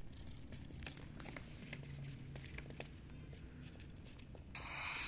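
Young cockatiels shuffling in their nest, making scattered light scratching clicks. About four and a half seconds in comes a short harsh hissing rasp.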